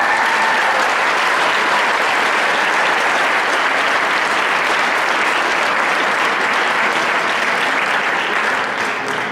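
Audience applauding, starting suddenly and holding steady before tapering near the end.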